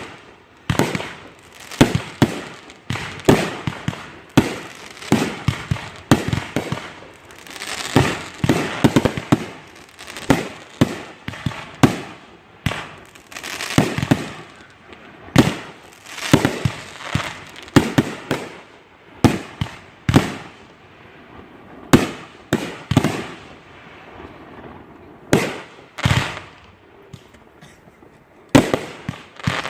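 Consumer fireworks going off in rapid succession: a steady string of sharp bangs, many with crackling tails. The bangs thin out for a few seconds near the end, then pick up again.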